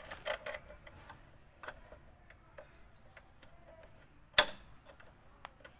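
Scattered metallic clicks and clinks of the brake caliper, new pads and hand tools being handled as the caliper is fitted back over the disc, with one much louder sharp click about four seconds in.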